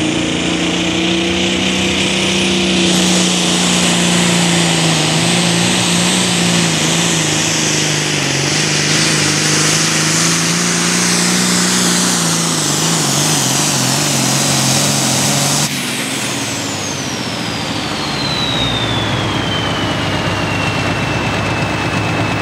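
John Deere Super Farm pulling tractor's turbocharged diesel running at full power down the track, with a high turbo whine climbing near the start and the engine note sagging slowly under the sled's load. About sixteen seconds in, the throttle is cut suddenly, the engine drops back, and the turbocharger whistle winds down in one long falling whine.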